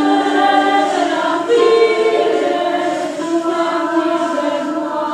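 Choir singing sustained chords with several voices on held notes, shifting to a new chord about a second and a half in.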